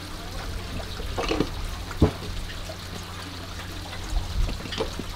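Knife knocking on a plastic cutting board as sea squirts are cut open, one sharp knock about two seconds in and a few lighter ones near the end, over water trickling into live-seafood tubs and a steady low hum.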